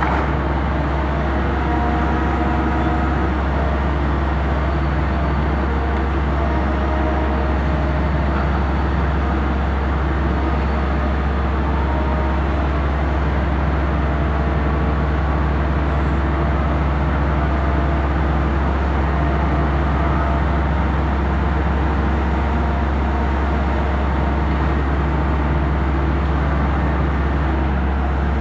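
Hitachi ZX 350-3 high-reach demolition excavator's diesel engine running steadily under working load. Hydraulic whine comes and goes as the boom and jaw move.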